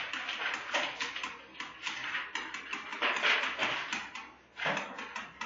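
Stylus scratching and tapping on a pen tablet as Korean characters are handwritten: an irregular run of short scratchy strokes and small clicks, a little louder a few seconds in.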